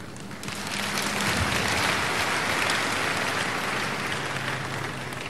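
Congregation applauding, the clapping swelling about half a second in and dying away near the end.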